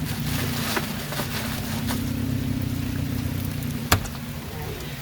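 Car engine idling steadily, with light rain falling and a single sharp knock about four seconds in.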